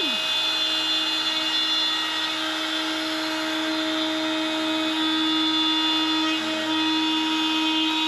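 Makita router spindle on a mostly 3D-printed CNC machine (MPCNC) running steadily while its bit cuts a square test block out of a wooden board: a steady motor whine over continuous cutting noise.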